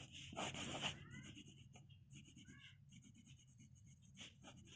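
Faint scratching of a plastic fountain pen's round nib across paper as a signature is written in short strokes, loudest about half a second to a second in. The paper is not smooth, so the nib runs slightly scratchy.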